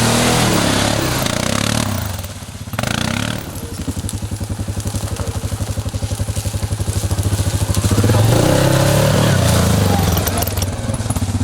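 ATV engine running: the throttle comes off about two seconds in, the engine runs at low revs with an even fast pulse, then picks up again around eight seconds in.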